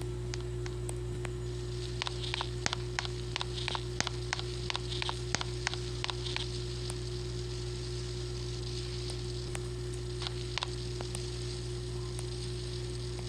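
A run of sharp clicks or taps over a steady electrical hum, thickest in the first half and coming again sparsely later.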